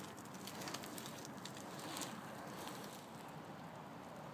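Small wheels of a Trikke three-wheeled carving scooter rolling over coarse asphalt: a steady gritty rolling noise with many small crackles, swelling slightly about halfway through.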